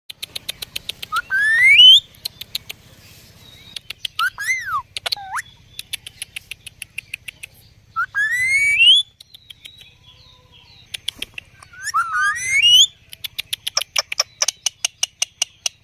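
Indian ringneck parrot calling: three rising, whistle-like screeches about a second long, with a shorter rise-and-fall call and a falling note between the first two. Runs of quick sharp clicks fill the gaps between the calls.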